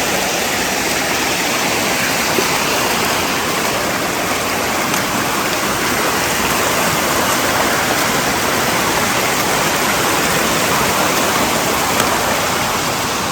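A small mountain stream rushing steadily over rocks close by, running full after rain.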